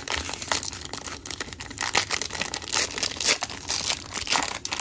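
Wrapper of a 2022 Topps Series 2 baseball card fat pack being torn open and crinkled by hand, a dense run of irregular crackles.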